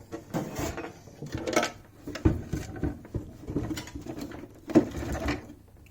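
Irregular small clicks, taps and scraping of a tool poking around inside a coffee machine's housing, fishing for a loose nut, with a sharper knock about two seconds in and another near the end.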